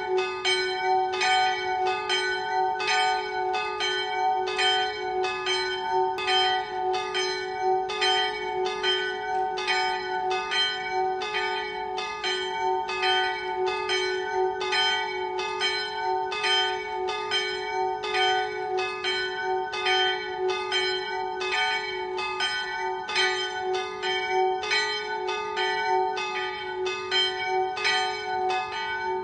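Church bells pealing: strokes falling in quick, even succession, a little under two a second, with the bells' tones ringing on between them.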